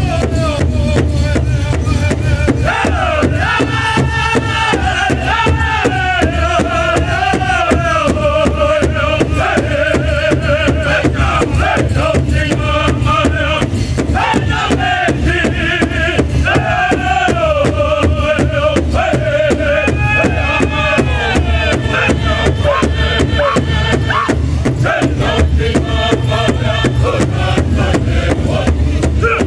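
A powwow drum group striking a large shared hide drum in a steady unison beat, with the men singing a chant together over it.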